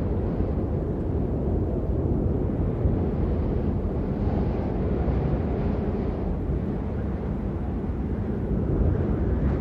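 Steady low rumbling noise with no distinct events, of the kind wind buffeting a microphone outdoors makes.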